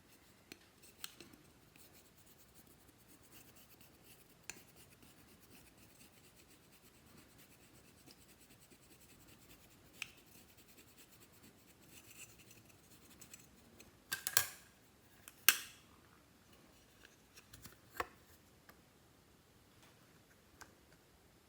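Clear slime being handled and mixed by hand, giving soft sticky clicks and small pops, with two louder crackling bursts about two-thirds of the way through.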